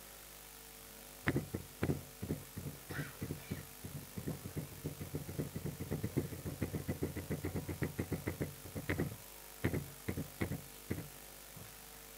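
Dry-erase marker writing numbers on a whiteboard: a quick run of short taps and strokes that speeds up in the middle, then a few separate taps near the end.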